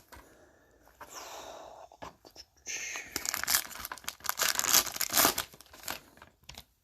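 Trading-card pack wrapper being torn open, a steady rip about a second in, then loud irregular crinkling of the wrapper for a few seconds.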